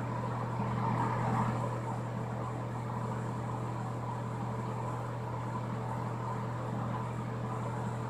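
Ceiling exhaust fan running with a steady low hum.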